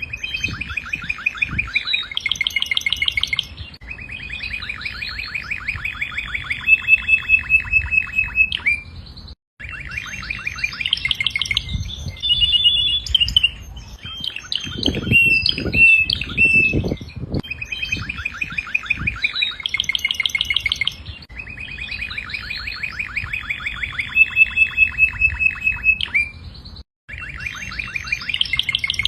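Domestic canary singing a long, continuous song of rapid trills and rolling repeated notes. The song breaks off abruptly twice, about nine seconds in and near the end.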